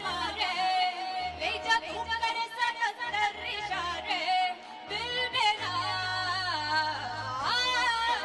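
A woman singing a melody into a microphone, backed by a live band with keyboards, guitar and low bass notes.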